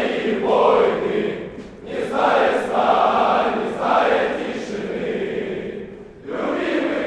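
A column of marching soldiers singing in unison, many voices in long sung lines with short breaks between them.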